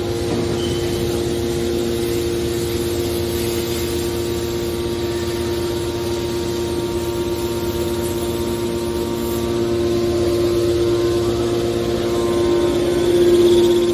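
Hydraulic scrap-metal baler running: a steady machine hum with a strong, even-pitched whine over a pulsing low rumble. It grows louder about ten seconds in and peaks just before the end.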